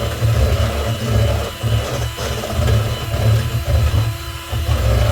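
Electric mixer running steadily, its beaters whipping wet muffin batter of butter, sugar, mashed banana, egg and vanilla in a bowl.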